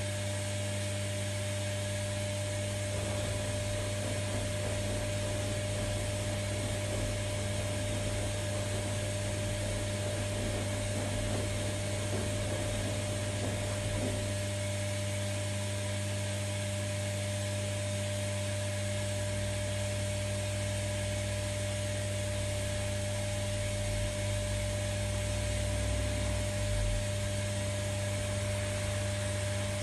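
Primus RS16 front-loading washing machine running, its drum turning at speed with a steady motor hum and whir.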